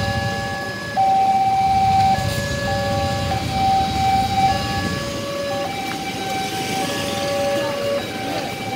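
Railway level-crossing warning alarm sounding: electronic tones alternating between a higher and a lower pitch, about a second each, with more than one alarm overlapping out of step. A low rumble of idling motorcycle engines lies beneath.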